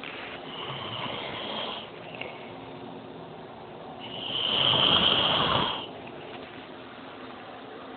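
Snoring: a softer snore about half a second in, then a louder, longer snore lasting nearly two seconds about four seconds in.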